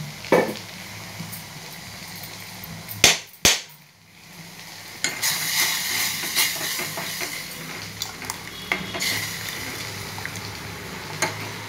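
Steel ladle stirring a yogurt curry in a stainless steel pot, scraping and clinking against the pot's sides, over a steady low hum. Two sharp knocks come about three seconds in, and the stirring grows busier from about five seconds on.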